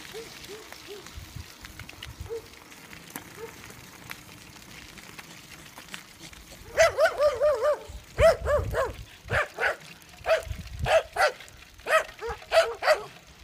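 A dog barking while running: a few faint short yips at first, then about seven seconds in a quick run of loud, high-pitched yelping barks, followed by separate barks a few per second.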